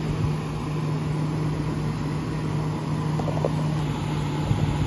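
1970 Signature 6,000 BTU window air conditioner running on high: a steady low hum under the even rush of its fan.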